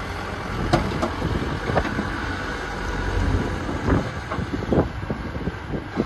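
Farm tractor's diesel engine running under load as it pulls a trailer heavily loaded with sacks over rough ground. A few short knocks are scattered through it.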